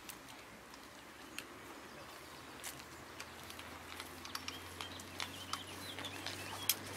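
Birds chirping now and then over a faint low steady hum, with scattered light clicks and knocks.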